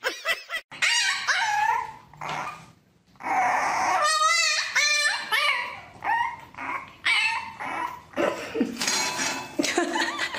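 A dog whining and yipping in a series of short high calls that bend in pitch, with one longer wavering whine about four seconds in.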